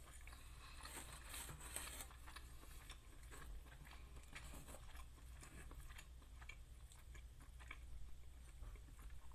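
A person eating noodles, close to the microphone: faint chewing with many small wet mouth clicks, a little denser about a second in.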